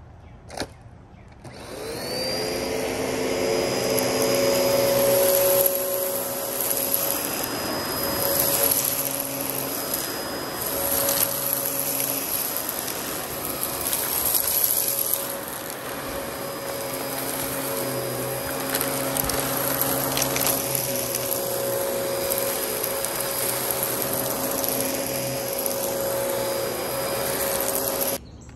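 A Dyson DC14 upright vacuum cleaner starts with a click, and its motor spins up to a steady whine about two seconds in. It then runs with a rushing suction noise as it is pushed over a carpet sample, picking up fine dirt and fluff.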